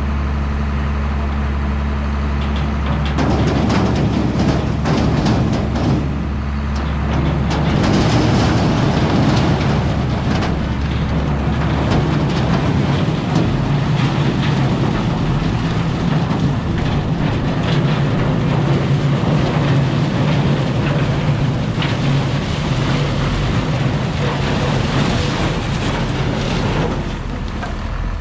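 A heavy diesel engine idling. About three seconds in it starts working harder, under a continuous clanking and rattling of metal that lasts until it eases off near the end.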